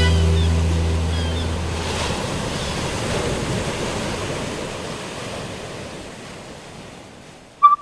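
Sea surf washing, an even rush that fades gradually away. The last low chord of a song dies out in the first couple of seconds.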